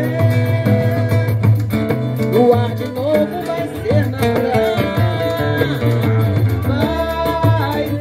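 Live samba band playing, with guitar and percussion under a woman's lead vocal.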